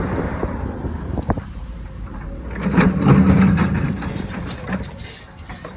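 Backhoe engine running with a steady low rumble. About three seconds in its note strengthens under a louder stretch of clatter and cracking, as the wall is being torn down.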